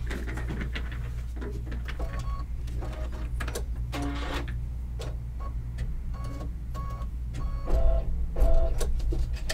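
Small clicks, knocks and short blips from a Brother Luminaire embroidery machine as its empty bobbin is changed, over a steady low hum.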